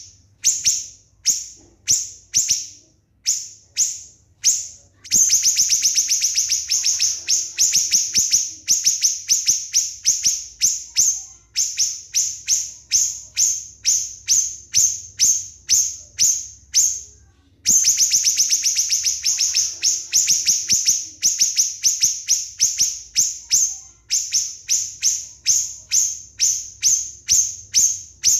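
Small songbird giving sharp, high-pitched chirps in rapid-fire 'nembak' song. The notes come about twice a second at first, then after about five seconds run together in a fast continuous string, with a short break partway through.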